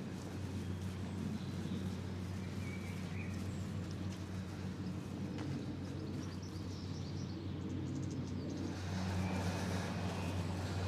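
A steady low mechanical hum, with a few short bird chirps over it.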